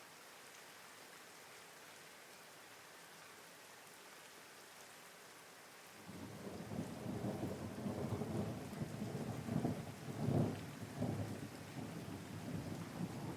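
Steady rain, with a roll of thunder starting suddenly about halfway through, rumbling with several swells and loudest a few seconds later before easing off.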